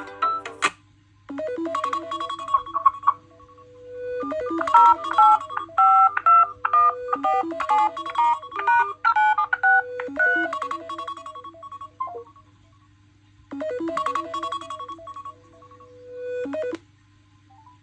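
A smartphone's ringtone playing a short electronic melody of bright tones in repeated phrases, with brief pauses between them.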